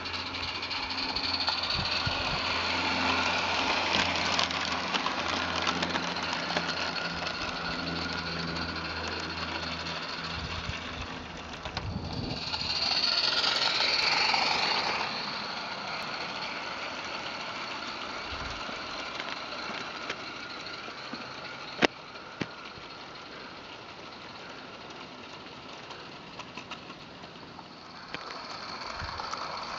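Garden-scale model steam train running along the track, swelling to its loudest as the locomotive and coaches pass close by about 13 seconds in, then fading. A steady low hum lies under the first third, and a single sharp click comes a little over 20 seconds in.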